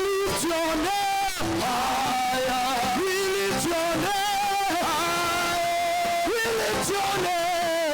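Worship music: a voice singing long held notes with a wavering vibrato over guitar accompaniment.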